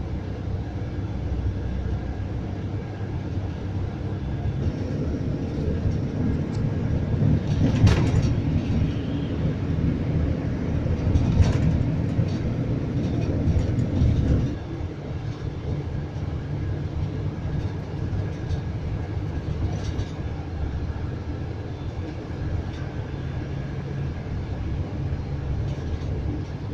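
Engine and road noise inside a Scania coach's cabin on the move: a steady low rumble that grows louder from about five seconds in, with a couple of sharp knocks, then drops off abruptly about halfway through and carries on at a lower level.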